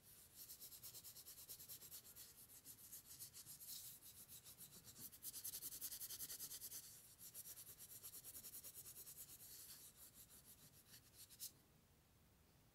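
Cloth rubbed rapidly back and forth over the spirit level's metal adjuster ring to polish it, a faint quick hissing stroke many times a second. It stops with a single light tap about a second before the end.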